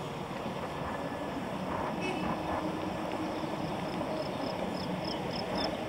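Steady rushing noise of wind and road rumble on a moving camera, with distant dump-truck engines from the asphalt-paving work mixed in. Near the end comes a run of faint, high, evenly spaced ticks, about three a second.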